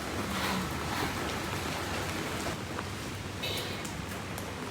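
Heavy rain falling in a steady downpour, an even hiss with no break.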